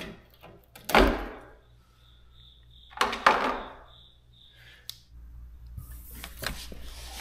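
Two dull knocks about two seconds apart as a loose pickup taillight housing is handled. Then, from about five seconds in, a metal door is pushed open and a steady rush of noise comes in.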